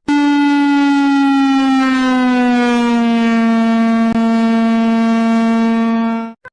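An emergency-alert alarm tone played in reverse: one long, loud buzzy tone rich in overtones that slowly falls a little in pitch, starts abruptly, and stops just before the end.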